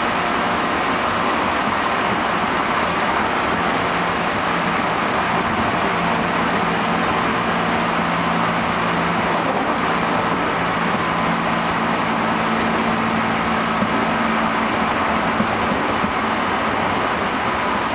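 Running sound inside a JR Central 211-series electric motor car (MoHa 210-5017) under way: a steady rumble of wheels on rail, with the hum and whine of its internally fan-cooled traction motors. The car is one known for an abnormal, tremendous motor noise. The low hum steps up slightly in pitch about two-thirds of the way through.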